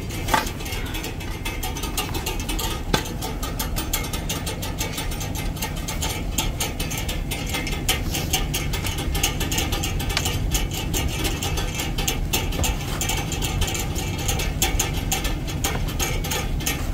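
Hand-operated jack ratcheting as its long steel handle is pumped, a fast, unbroken run of metallic clicks from the pawl as a heavy load is lifted.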